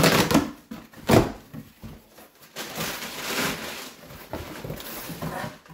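Packing tape torn off a large cardboard shipping box, with two sharp rips in the first second or so, then the cardboard flaps pulled open and the paper packing inside rustling.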